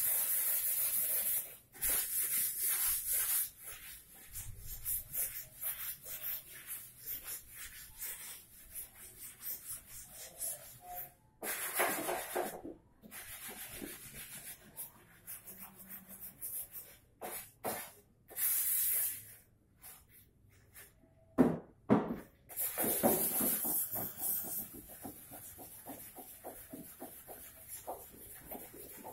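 Compressed air hissing from an air gun fed by a small air compressor, in several bursts of one to two seconds each. Between bursts there are light clicks and rubbing from handling a wooden chair.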